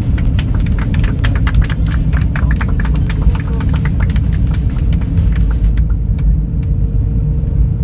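Steady low rumble inside a moving vehicle, with dense rattling over most of it and a steady hum coming in about a third of the way through.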